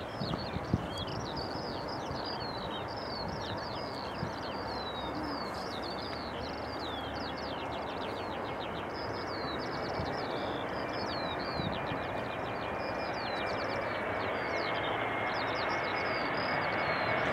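A small songbird sings a rapid, unbroken run of chirps over the steady rush of an approaching Airbus A321's two CFM56 turbofan engines, which slowly grow louder, with a faint steady whine coming in about halfway. A few brief knocks sound in the first second.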